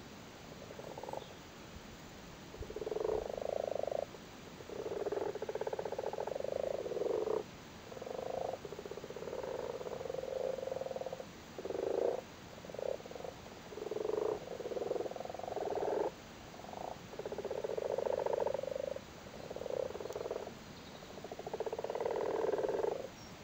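Common frogs calling in shallow water over their spawn: a chorus of rapidly pulsed croaks, each from half a second to a second and a half long, following one another with short gaps. These are the breeding-season calls of male frogs during spawning.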